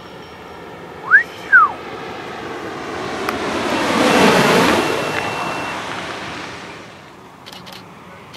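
A wingsuit flying low overhead: a rush of air that swells to a peak about four seconds in and then fades away as it passes. Just before it, someone whistles twice, one note sliding up and one sliding down, the loudest sound here; a few faint clicks come near the end.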